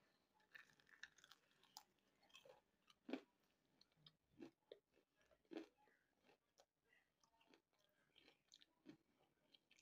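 A person chewing and biting into a piece of fried chicken, with faint, irregular crunches, the strongest about three and five and a half seconds in.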